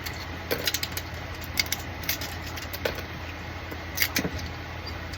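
Small, irregular plastic clicks and snaps as support material is broken off 3D-printed plastic parts, over a steady low hum.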